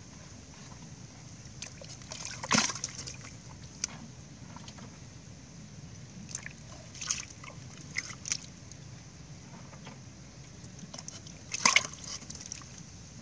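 Fish splashing and thrashing in a pit of shallow muddy water as they slide out of a PVC pipe trap. There are two sharp splashes, about two and a half seconds in and near the end, with smaller splashes between.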